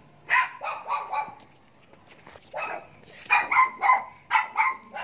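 A run of short, high-pitched animal calls, yips or honks: about four in quick succession near the start, a pause, then about seven more.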